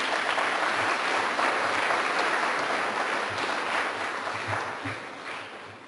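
Audience applauding after a speech, a steady dense clapping that fades away over the last couple of seconds.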